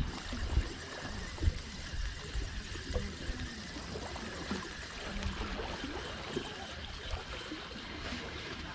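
Sea water lapping and trickling against the rocks below, with a few short low thumps in the first couple of seconds.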